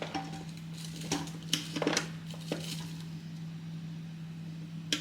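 A few light clicks and knocks of food containers and utensils being handled while food is portioned, over a steady low electrical hum.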